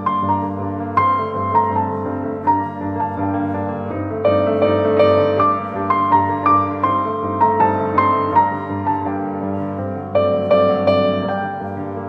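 Background piano music: quick phrases of struck notes over a steady low sustained tone.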